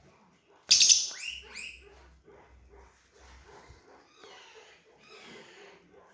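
Lovebird giving a loud, shrill screech about a second in, then a run of quieter short chattering calls.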